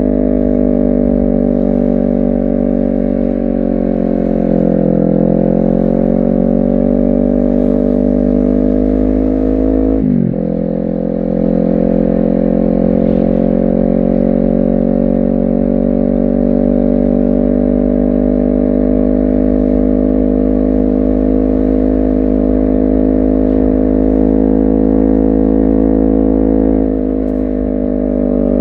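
Honda CBR250RR engine and exhaust under way, running at a fairly steady pitch. The pitch sags and recovers a few seconds in, and about ten seconds in there is a quick dip and jump, as at a gear change. Near the end the engine note drops as the throttle comes off.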